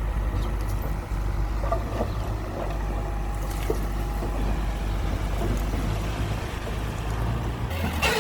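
Diesel engine of heavy earthmoving machinery running steadily with a deep, low rumble. Near the end a louder, higher-pitched noise joins in.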